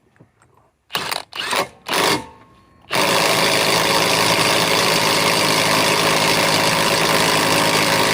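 Bosch 330C mid-torque cordless impact wrench on a 4 Ah battery: three short trigger bursts, then about a second later continuous loud hammering at full output as it tries to break a tight fastener loose.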